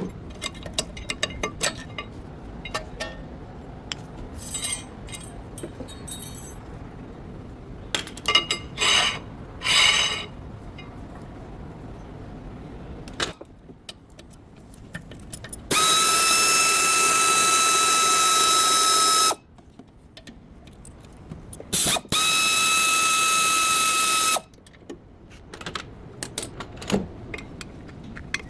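Workshop tool sounds: scattered metal clicks and short bursts of ratcheting, then a power tool running twice in steady high-pitched whines, first for about three and a half seconds and then, after a short pause, for about two and a half seconds.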